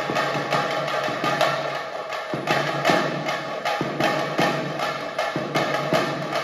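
Music with a steady percussive beat.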